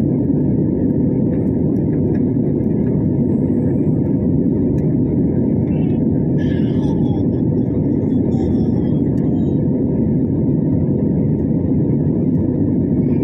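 Steady cabin noise of a jet airliner in flight, a loud, even low rumble of engines and airflow heard from inside the cabin.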